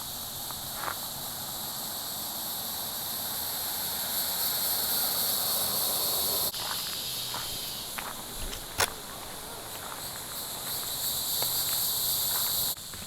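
A steady chorus of insects shrilling in the woods, with a few scattered sharp clicks. The chorus changes abruptly about halfway through and again near the end.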